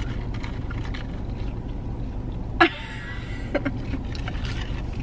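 Steady low hum of a parked car's idling engine, heard from inside the cabin, with one brief sharp sound about two and a half seconds in.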